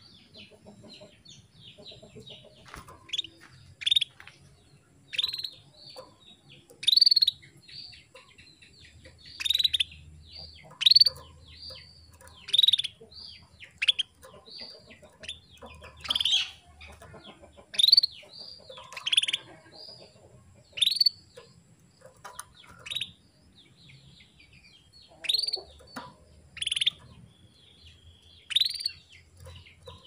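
Female canary calling: short, high chirps repeated, the louder ones about every one to two seconds with softer twittering in between. This is a hen's call to male canaries, the kind used to stir a young male into song.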